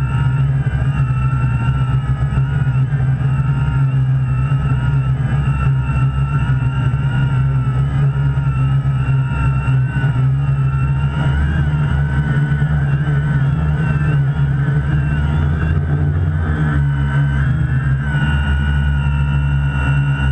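Quadcopter's electric motors and propellers whining steadily in flight, heard from the GoPro mounted on the aircraft: a loud low hum under higher tones that waver slightly up and down in pitch.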